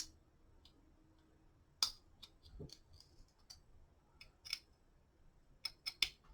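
Scattered light metal clicks and ticks of a hex key and screws being worked on an aluminium quad-rail handguard as it is snugged down, about a dozen irregular taps with the sharpest near the end.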